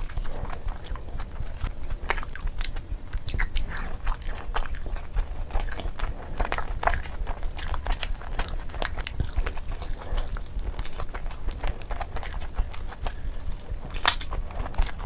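Close-miked eating of biryani by hand: wet chewing with many irregular lip and mouth smacks and clicks, over a low steady hum.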